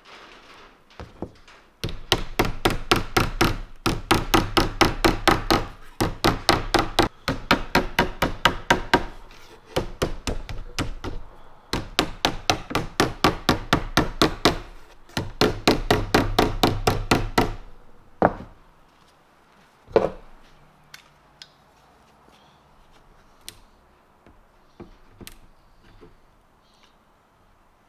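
A mallet tapping plastic edging trim onto the edge of a plywood panel: rapid, even strikes at about four a second in several runs with short pauses. These are followed by two single knocks, then only faint clicks.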